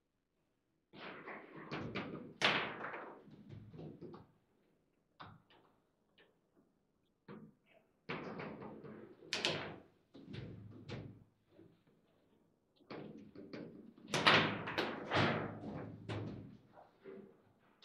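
Foosball table in fast play: sharp clacks and knocks as the ball is struck by the rod-mounted plastic figures and bangs off the table's sides. The knocks come in three flurries with short pauses between.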